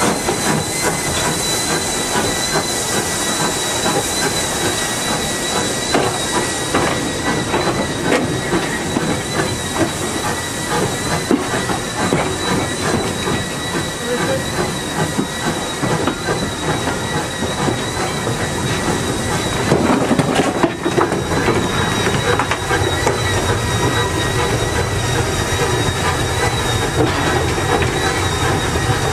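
Steam locomotive on the move, heard from its footplate: steady running noise with many short knocks and rattles from the wheels and cab, and a steady high note of escaping steam.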